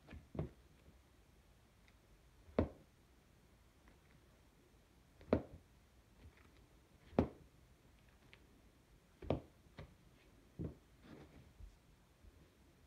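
Rubber-soled high-top canvas sneakers stepping down on a laminate floor: single soft thuds about every two seconds, coming a little closer together near the end.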